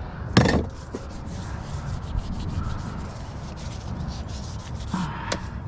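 Rubbing and scraping of objects being shifted against each other, with a sharp knock about half a second in and a smaller one near the end.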